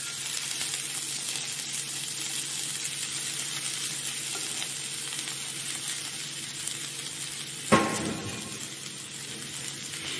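Vegetables and boiled noodles sizzling in a hot Chinese wok after the flame has been switched off: a steady hiss. About three-quarters of the way through there is a single sharp metallic clank that rings briefly.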